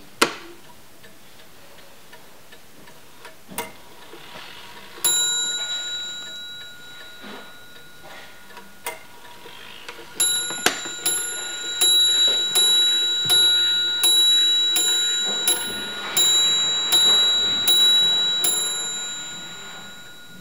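Paris mantel clock movement striking on its bell: a single stroke about five seconds in, then, from about ten seconds in, a run of about twelve strokes roughly 0.7 s apart, each ringing on and fading. Before that come a few sharp clicks as the hands are turned by hand to set off the strike.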